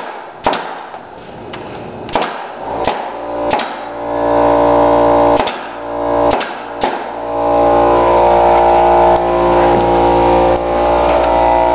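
Pneumatic nailer firing into the tunnel section's edge: sharp single shots, roughly one a second, about seven in all. About four seconds in, guitar music comes in and runs louder than the shots.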